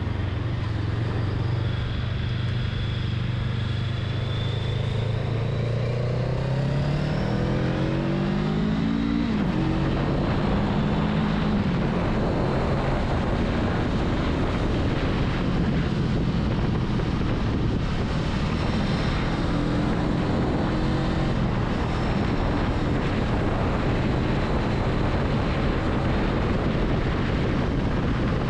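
Honda Rebel 500 parallel-twin engine running steadily at low revs, then revving up through the gears about six to twelve seconds in, with a sudden drop in pitch at a gear change. After that it runs at a steady cruise under a rising rush of wind and road noise.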